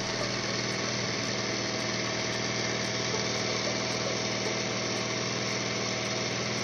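Bajaj Pulsar 150's single-cylinder four-stroke engine idling steadily after a timing chain replacement. It runs evenly with no abnormal noise, which the mechanic takes as the sign that the timing is set correctly.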